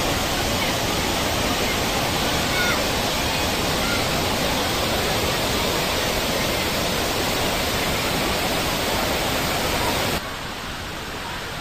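Loud, steady rushing of a waterfall in flood, with overflow water pouring over a stone weir close by. About ten seconds in, the sound suddenly turns quieter and duller.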